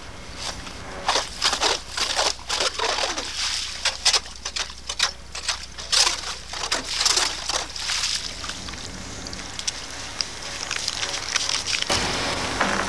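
Hand ice auger boring through lake ice: irregular crunching and scraping as the blades cut, with slush and water sloshing around the hole as it breaks through. The crunching thins out after about nine seconds.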